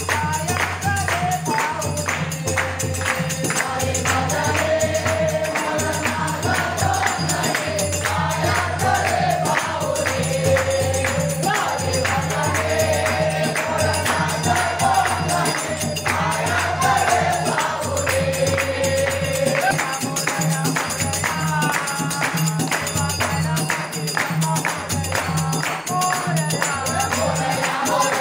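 Men and boys singing a Marathi devotional bhajan in chorus, with steady rhythmic hand-clapping and a hand-played two-headed barrel drum keeping time underneath.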